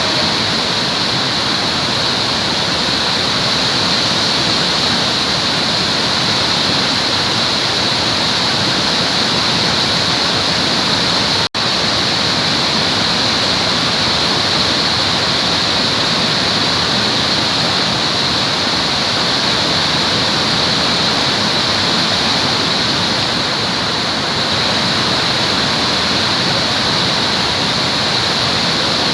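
Waterfall: water falling and rushing in a constant, steady hiss, cutting out for an instant about a third of the way in.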